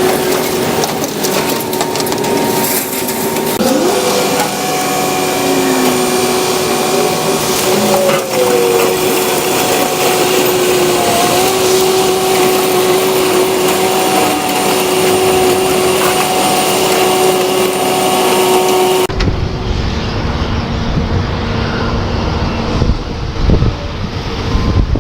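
Construction-site machinery running with a steady whine over loud noise. About 19 s in it cuts to wind rumbling on the microphone.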